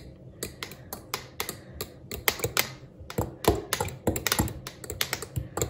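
A metal fork stirring thick kefir in a glass jar, clinking against the glass in quick, irregular clicks, about four a second.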